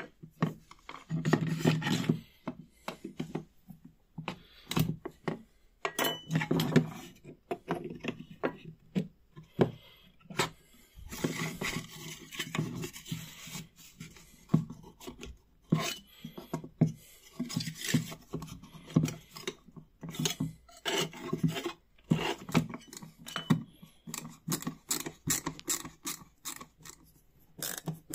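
Metal scraper blade scraping across a wooden part in short, irregular strokes, with frequent sharp clicks and knocks of the tool and wood against the bench.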